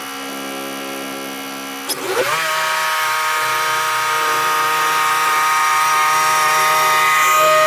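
Wood-Mizer portable bandsaw sawmill running steadily. About two seconds in there is a click, and its pitch sweeps up and then holds steady, a little louder.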